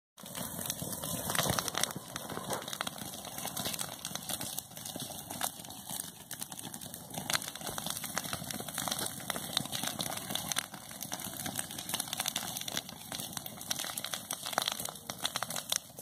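Grass fire burning, the dry grass crackling with many irregular snaps over a steady hiss.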